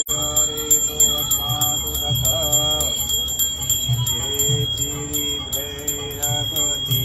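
Temple aarti music: bells ringing continuously over a melody, with drum beats at uneven intervals.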